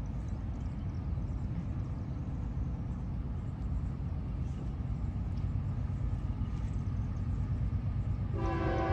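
A low rumble slowly growing louder as a train approaches, then near the end a locomotive's multi-note air horn starts sounding, suddenly and loud.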